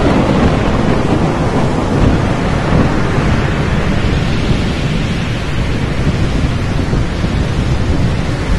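Thunderstorm sound effect: a steady, dense rushing noise like heavy rain, with a deep rumble underneath.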